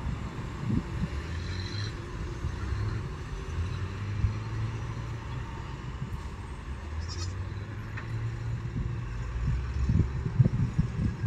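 Diesel engine of a coke-laden dump truck running with a steady low rumble as the truck moves slowly past, with a few low thumps near the end.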